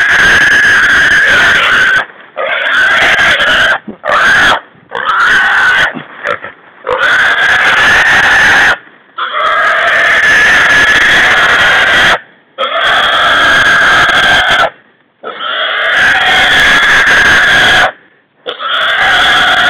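A caught wild hog squealing loudly in long screams of one to three seconds, about ten in all, each broken off by a brief pause for breath. It is a distress squeal while the hog is held down and its legs are tied.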